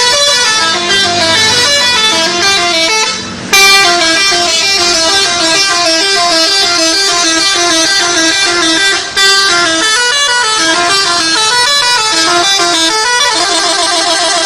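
A bus's 'telolet' multi-tone musical horn playing a loud tune of short stepped notes that rise and fall. It breaks off briefly twice, then near the end switches to a fast warbling trill.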